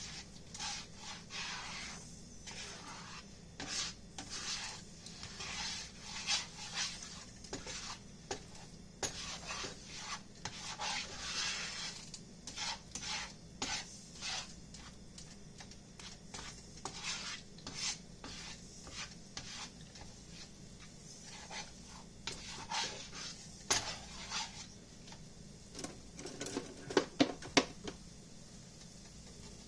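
Cooking utensil scraping and stirring in a frying pan in irregular strokes, as eggs are scrambled for fried rice. A few sharper knocks against the pan near the end.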